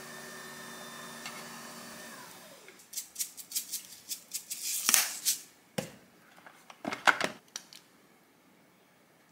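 A steady electric hum that winds down and stops about two seconds in, then a dense run of rapid sharp clicks as toasted sesame seeds are shaken out of a plastic seasoning container, followed by a few separate sharp clicks near the end as a ketchup squeeze bottle's flip cap is handled.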